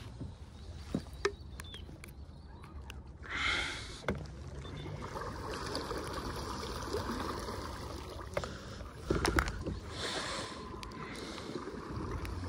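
Water rushing and sloshing along the hull of a fishing kayak as it moves, with a few sharp clicks and knocks.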